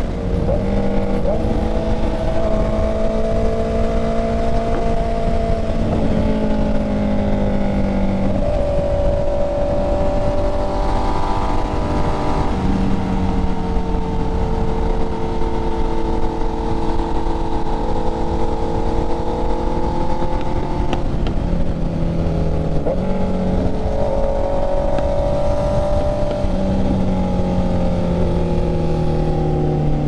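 Honda CB650R's inline-four engine running at cruising speed from the rider's seat, its note holding steady with a few small shifts in pitch and falling away steadily over the last few seconds as the throttle eases. Heavy wind rumble underneath.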